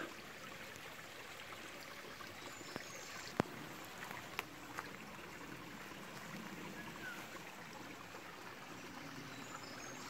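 Small forest stream running and trickling over rocks, a steady faint rush of water. A couple of sharp clicks stand out, a little over three seconds in and again about a second later.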